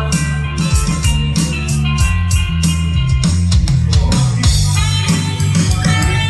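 Live rock trio playing an instrumental passage without vocals: electric guitar, electric bass and drum kit, with a steady drum and cymbal beat.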